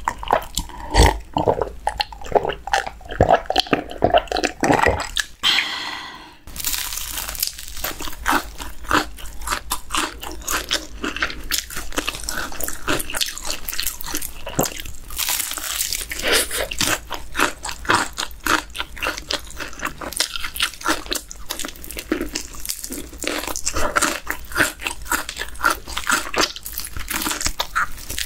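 Close-miked eating: a few swallows of iced cola at the start, then crisp, cheese-powder-coated fried chicken drumstick being bitten and chewed. From about six seconds in there is dense, continuous crunching of the fried crust.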